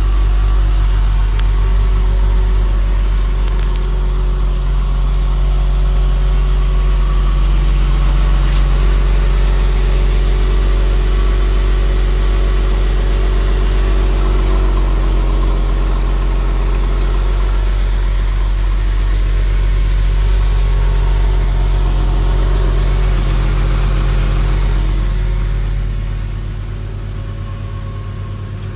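1999 Porsche 911 (996) Carrera 2's 3.4-litre water-cooled flat-six idling steadily just after start-up. It becomes somewhat quieter near the end.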